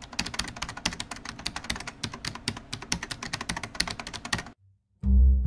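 Rapid computer-keyboard typing, a dense run of clicking keystrokes that stops about four and a half seconds in. After a short gap, low string music starts near the end.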